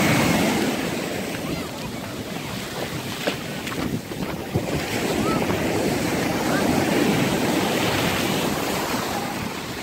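Ocean surf breaking and washing up the beach, swelling louder and easing off as each wave comes in, with wind buffeting the microphone.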